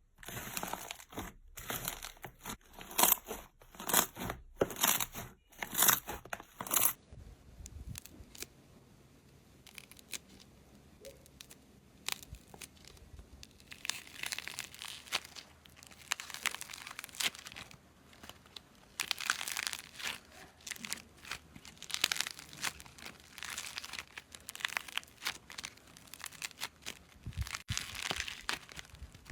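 Slime being pressed and pulled apart by hand, giving crunchy crackles and tearing sounds. The first seven seconds are a run of sharp snaps; after that the crackling is softer, swelling in waves.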